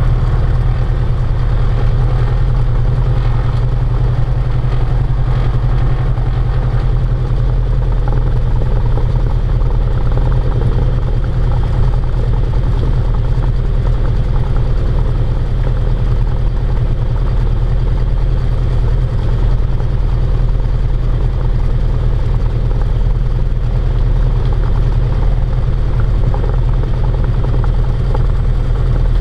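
Single-engine Cessna 172RG Cutlass's four-cylinder Lycoming engine and propeller running steadily at low taxi power, heard from inside the cockpit as a deep, even drone.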